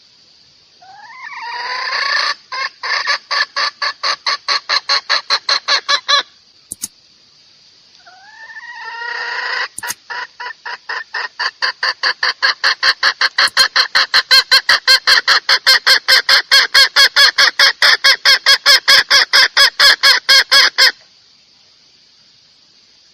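Domestic hen calling in two long bouts. Each bout starts with a drawn-out rising note and then breaks into rapid, even clucks at about four or five a second; the second bout is longer. This is the hen call used as a lure to draw a rooster. A faint steady high hiss runs underneath.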